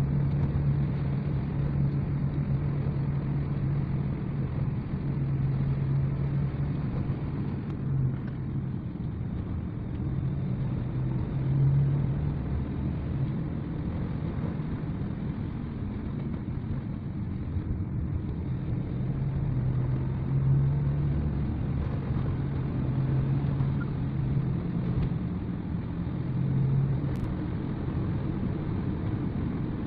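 Car engine and tyre noise heard from inside the cabin while driving, a steady low hum that swells and fades a little.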